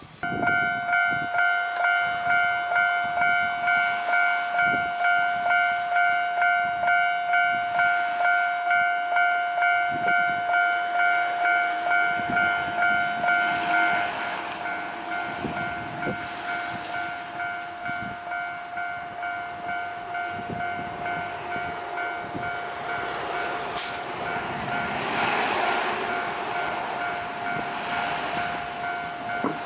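A Japanese level-crossing alarm starts suddenly and rings its steady electronic 'kan-kan' tone, about two strokes a second, quieter from about halfway. Over it an Ohmi Railway electric train runs through the crossing, its rumble and wheel knocks building to their loudest near the end.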